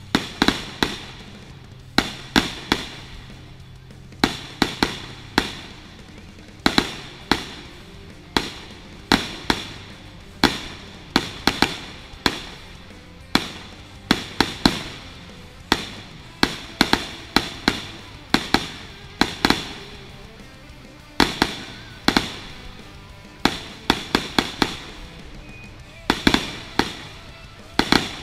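Aerial fireworks shells bursting in a rapid, irregular barrage of sharp bangs, often several a second, each trailing off briefly.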